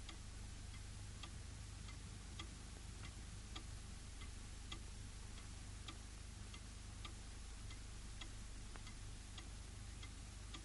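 A clock ticking steadily, a little under two ticks a second, faint over the hiss and low hum of an old film soundtrack.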